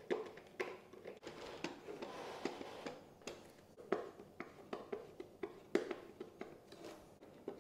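A 2 mm hex driver turning small screws into a foam model-jet wing, with scattered small clicks and rubbing of hands on the foam airframe.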